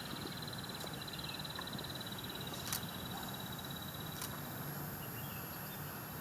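Quiet open-air ambience: a steady low hum and hiss, with a high, rapid trill that fades out about four seconds in and a couple of light clicks.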